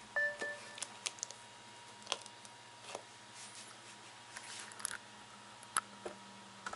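A short electronic beep from a Sony Ericsson W350 mobile phone as it starts up. It is followed by scattered light clicks and soft plastic rustles as the phone is handled and set down on its plastic bag.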